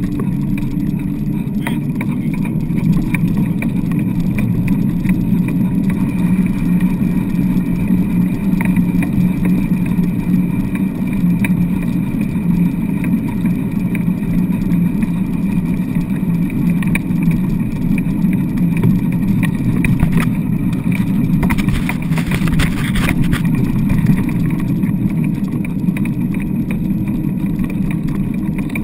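Steady rumble and rattle of a wheeled dryland dog rig rolling fast over wet beach sand, picked up through the rig-mounted camera, with scattered small clicks and a brief hiss about three-quarters of the way through.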